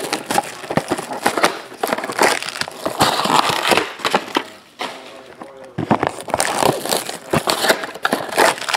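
Clear plastic shrink wrap being torn off a trading-card hobby box and crumpled in the hands: loud crinkling and crackling, easing off about halfway through and then picking up again.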